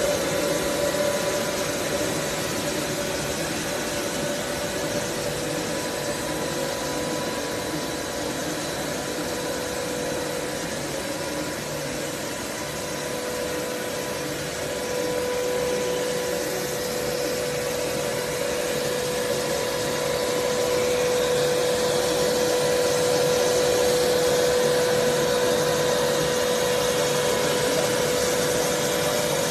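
Blown-film extrusion line for biodegradable film running: a steady machinery drone with a constant whine held on a single pitch, growing slightly louder about two-thirds of the way through.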